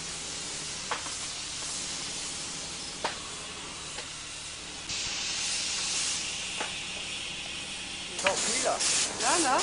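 A 1/5-scale live-steam model of a Swiss 3/5 steam locomotive venting steam with a steady hiss that grows louder about five seconds in. A few sharp clicks are heard, and voices come in near the end.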